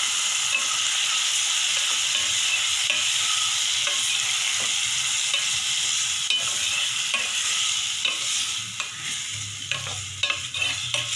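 Chopped tomatoes sizzling in hot oil in a metal pot while a wooden spatula stirs them. The sizzle eases a little in the last few seconds, and sharp clicks and scrapes of the spatula against the pot stand out.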